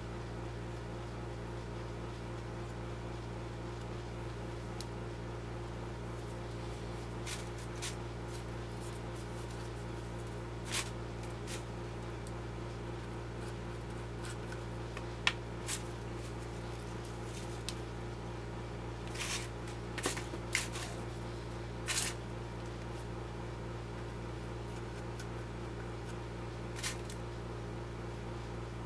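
Steady electrical hum, with scattered light clicks and scrapes of small pistol-frame parts being handled on a bench. The clicks bunch together about two-thirds of the way through.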